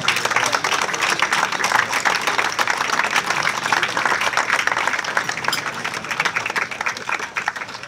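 Audience applauding: many hands clapping together, dense and steady, easing off near the end.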